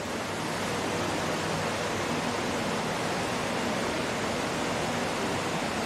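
Steady hiss of even noise, rising a little about half a second in and then holding level.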